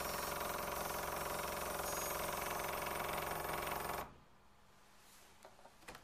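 Dot matrix printer's print head rattling out a dense, pitched mechanical buzz that cuts off suddenly about four seconds in, followed by a few faint clicks.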